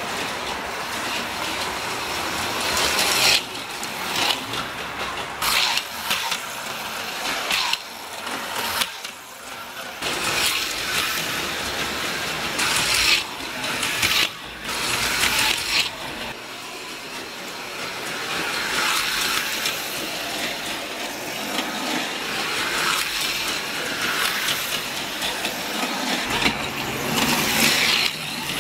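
HO-scale AFX Tomy Super Racing Turbo slot cars racing, their small electric motors whining and their pickups running on the track, swelling loudly each time a car passes close. At the start a model passenger train runs alongside.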